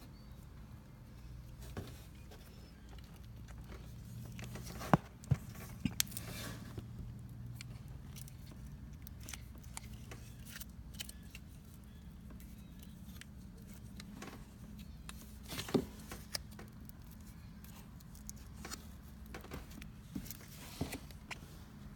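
Scattered light clicks, taps and small rattles of hands and parts being handled while working on an ATV's wiring and connectors, over a steady low hum. The sharpest clicks come about five seconds in and again near sixteen seconds.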